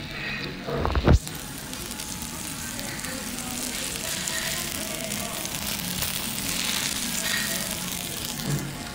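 Meat sizzling on a hot stone steak plate, an even hiss, with a loud thump about a second in.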